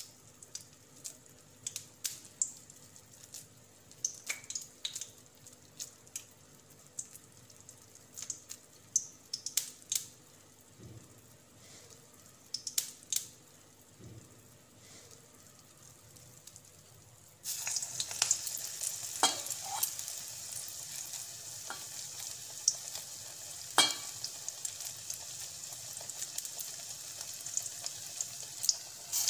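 Hands squeezing and flattening a wet puffed-rice pakora batter, soft squishes and small clicks. A little over halfway through, a pakora goes into hot oil in a wok and a steady sizzle of deep-frying starts suddenly, with a few sharp clicks on top.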